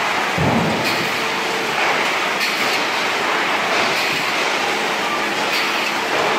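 Machinery of a salmon processing line running steadily, with a faint steady hum and irregular clanks and knocks as fish are moved along the steel line.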